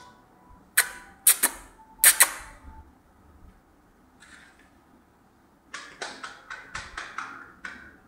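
Sharp taps and clicks from a kitten batting at a hanging network cable: a few single taps in the first couple of seconds, a lull, then a quick run of about eight taps near the end.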